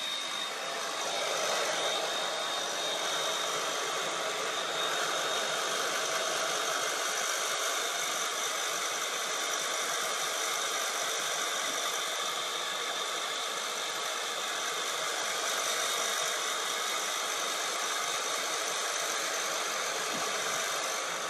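Handheld hair dryer running steadily: a constant rush of blown air from its fan, with a thin high whine in the first few seconds.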